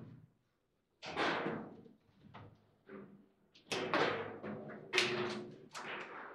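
Foosball table in play: the ball being struck by the plastic players and rods slamming against the table, a series of about seven sharp knocks and bangs, each ringing briefly through the table body.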